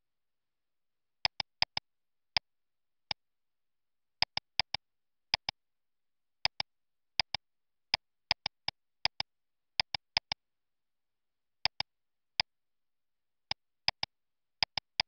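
Computer mouse button clicking, sharp and irregular, many of the clicks in quick pairs, starting about a second in, with dead silence between them.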